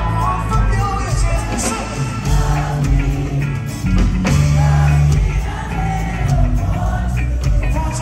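Live reggae band playing through a concert PA: a man singing over drums, bass guitar, electric guitar and keyboards, with a heavy bass line.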